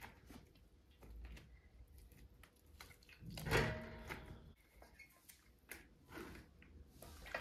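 Soft wet rustling and handling noises as feathers are pulled from a scalded chicken and dropped into a plastic bucket, with a louder brief noise about three and a half seconds in.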